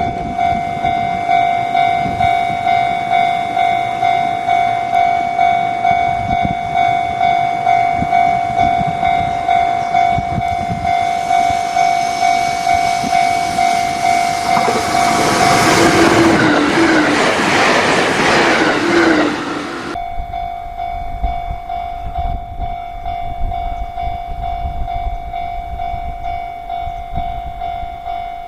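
Japanese level-crossing warning bell ringing steadily, about one and a half strokes a second. About ten seconds in, the rumble and clatter of a passing train rises over it, loudest around two-thirds of the way through, then cuts off abruptly, leaving the bell ringing over a low rumble.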